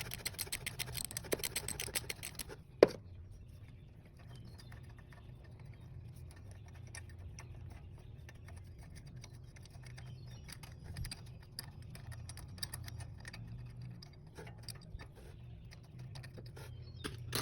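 Hand ratchet clicking rapidly as the starter motor's mounting bolts are backed out. The clicking is louder for the first few seconds, with one sharp click about three seconds in, then goes on fainter.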